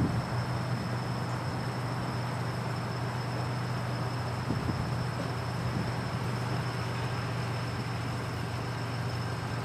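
Toyota Tacoma pickup's engine running steadily under load as the truck strains to pull a stump, its tyres finding little traction.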